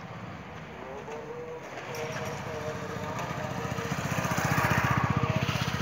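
An engine running with a fast, even beat, growing louder from about two seconds in and loudest near the end.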